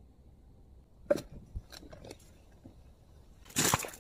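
A few scattered sharp ticks, then near the end boots splashing through shallow water, louder than anything before it.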